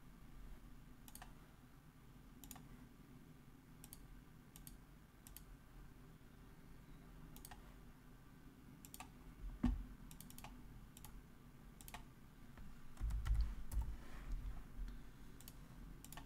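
Faint computer mouse clicks, scattered at roughly one a second, over a low steady hum. A single dull thump comes near the middle, and a few low bumps follow later.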